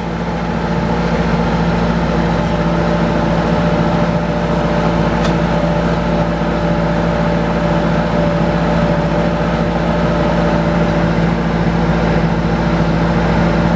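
Engine running steadily at constant speed, a loud even drone that swells slightly over the first couple of seconds.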